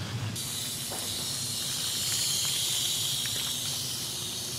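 Garden hose spray nozzle spraying water onto a plucked chicken carcass to rinse it: a steady hiss that starts about half a second in.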